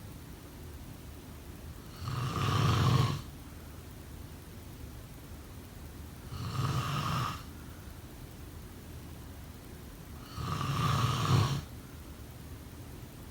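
Snoring: three snores in a steady rhythm, about four seconds apart, each lasting about a second.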